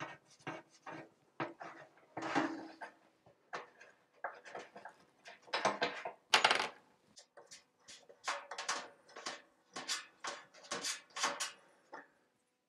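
Hand screwdriver backing wood screws out of the wooden cradle of a tin flour bin: a run of short, irregular scrapes and clicks, with a louder knock about six seconds in.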